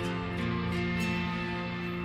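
Background music: sustained guitar-led chords, with a chord change at the start.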